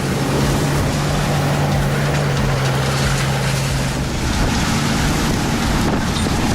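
Heavy engine running steadily under strong wind and rushing noise, its low hum shifting to a higher steady tone about four seconds in.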